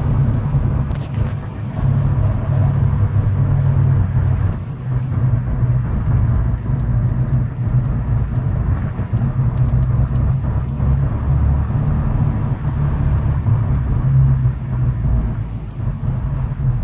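Opel Corsa D OPC's 1.6 turbo four-cylinder running with a steady low drone. For the first four seconds or so it carries the strange noise the owner is asking about, and this drops away after that.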